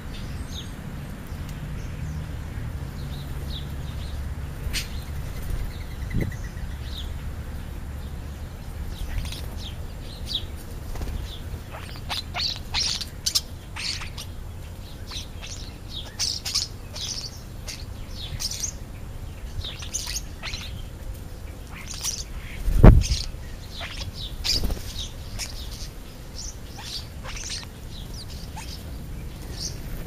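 European starlings chirping and calling in many short, high notes, growing busier after about ten seconds. One loud thump comes about two-thirds of the way through.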